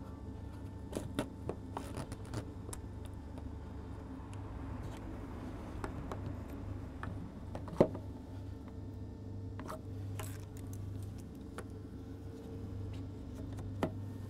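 Faint, scattered clicks and scrapes of a chisel-type glazing tool working plastic glazing packers in under the bottom edge of a uPVC door's glass panel, with one sharper tap about eight seconds in, over a steady low hum.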